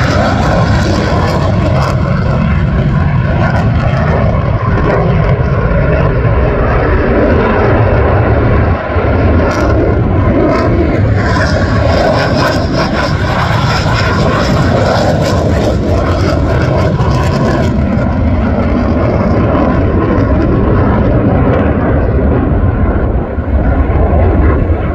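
Loud, steady jet noise from an F-22 Raptor fighter's two afterburning turbofan engines as it flies past low and then climbs.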